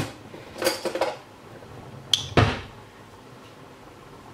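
Clinks and knocks of a spoon and spice container as red powdered pepper is spooned into the pan: a sharp click at the start, a short ringing clink just under a second in, and a heavier knock a little after two seconds.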